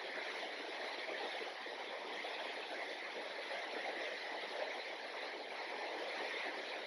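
Steady rush of flowing river water, an even hiss with no breaks or distinct splashes.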